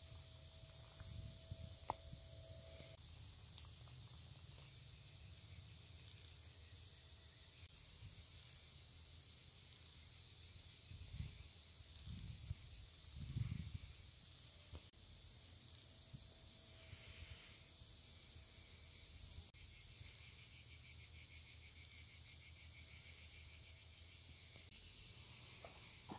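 Steady chorus of insects chirring, an even high buzz throughout, with a fainter, higher trill that stops and starts. A few low rumbles come near the middle.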